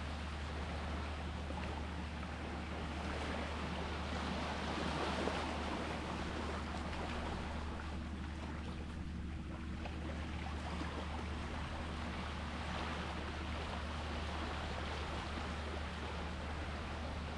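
Sea waves washing in, a steady wash that swells about five seconds in and again after twelve seconds, easing between, over a constant low hum.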